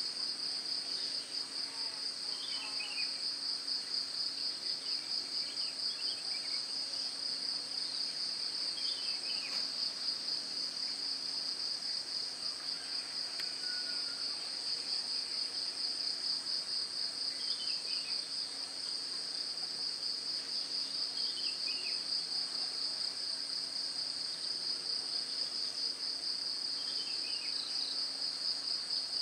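Steady insect chorus: a high-pitched, rapidly pulsing trill that never lets up. Short falling chirps come through now and then over it.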